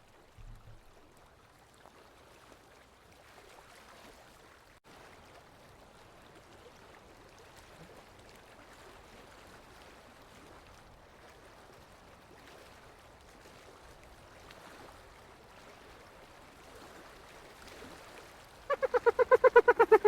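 Faint steady background hiss, then near the end a spotted hyena starts giggling: a loud, fast run of pulsed cackling calls.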